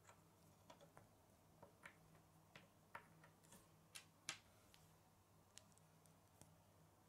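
Faint irregular clicks and taps of small plastic Lego bricks being handled, set down on a wooden tabletop and pressed together. There are about a dozen clicks, most of them in the first five seconds, with the loudest a little past the middle, over a low steady hum.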